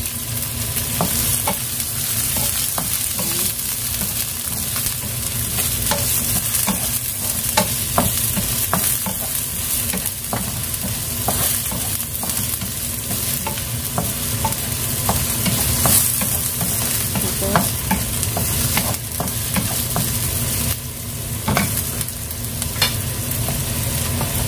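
Garlic and onion frying in a little oil in a pan, sizzling steadily while being stirred, with frequent short scrapes and taps of the utensil against the pan over a steady low hum.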